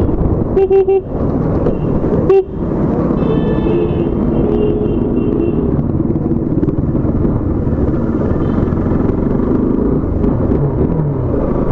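Motorcycle riding in city traffic, heard from inside the rider's helmet: a steady engine and road rumble. Short horn toots sound about a second in and again at about two and a half seconds, and a longer, higher horn follows from about three to six seconds.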